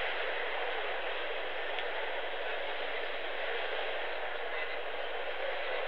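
Steady murmur of a large arena crowd, an even hiss-like sound with no single voice standing out.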